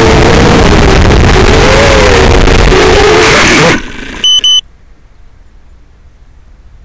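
FPV quadcopter's motors and propellers whining loud and distorted on its onboard camera microphone, the pitch wavering up and down with throttle. About four seconds in the sound cuts off abruptly as the drone crashes into the grass, followed by two short high electronic beeps, then only faint background.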